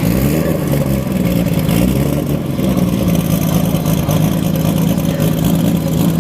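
Turbocharged car engine revving, its pitch rising and falling over the first couple of seconds, then running at a steady pitch.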